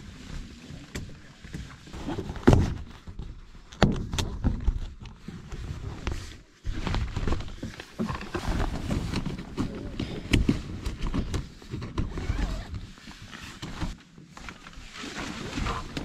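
Nylon tent fabric rustling and shifting as it is handled and its clips are fastened onto the tent poles, with a couple of sharp knocks near the start.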